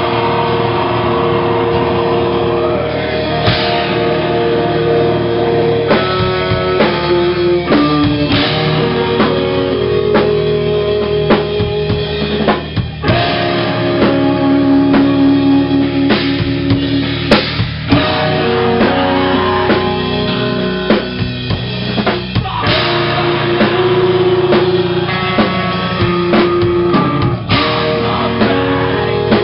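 Live rock band playing: drum kit with bass drum and cymbal hits driving under sustained guitar and bass guitar notes.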